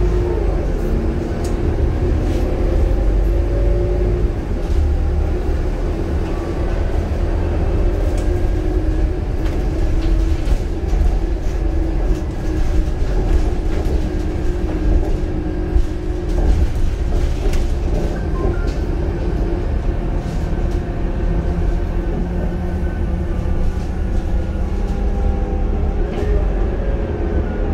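Scania K230UB bus heard from inside the cabin while driving: its turbocharged Scania DC9 five-cylinder diesel and ZF Ecomat automatic gearbox give a steady low rumble with whining tones that slide up and down in pitch with the bus's speed. Light clicks and rattles from the body and fittings come through over it.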